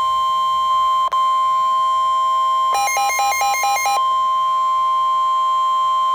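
NOAA Weather Radio's single steady warning alarm tone, heard through a receiver's speaker and announcing a severe thunderstorm warning. About three seconds in, a short burst of rapid alternating beeps from a second alert device sounds over it for about a second.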